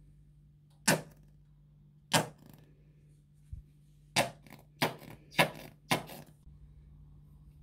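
A plastic squeeze bottle of sauce is handled and squeezed over chicken fillets, giving a series of short, sharp clicks and pops: two about a second apart, then a quicker run of about five.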